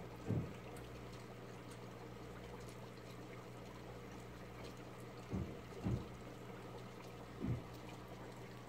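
Aquarium's steady mains hum with water trickling, the sound of a running tank filter. Four short, soft low thumps come through it, one at the start and three in the second half.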